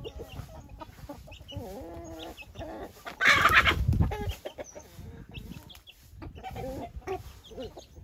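Aseel chickens clucking in short, repeated calls, with one loud rush of noise about three seconds in that lasts about a second.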